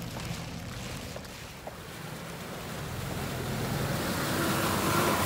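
Suzuki SUV fording a shallow rocky stream: the engine running under a wash of splashing, rushing water that grows louder in the second half.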